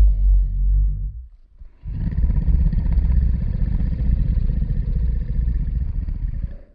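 A deep, rumbling roar sound effect that fades out about a second in. After a short pause, a second, longer low roar follows and cuts off suddenly just before the end.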